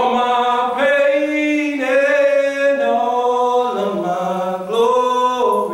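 A man singing unaccompanied: a slow melody of long held notes that step up and down, sliding up into the first note.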